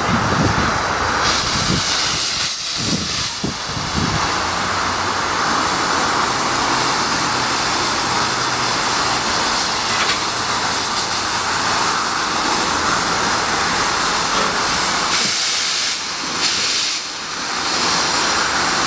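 Saddle tank steam locomotive 'Slough Estates No 3' hissing steam loudly and steadily as it draws slowly alongside. There are a few low beats in the first few seconds, and the hiss briefly drops away twice near the end.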